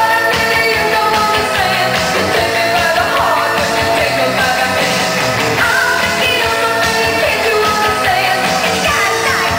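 Loud dance music with a sung vocal, playing without a break as the backing track for a cheerdance routine.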